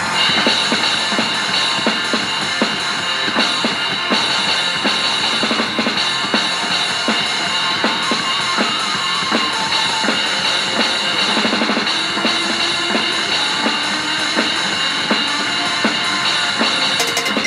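Drum kit played along to a thrash metal recording: steady kick and snare hits over a dense wall of band sound.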